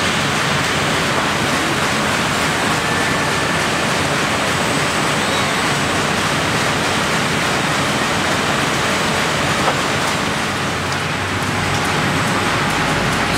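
Steady factory-floor noise around an automated palletizing cell: an even, loud rushing hiss with no clear machine rhythm, a couple of faint short tones, and a small click near the ten-second mark.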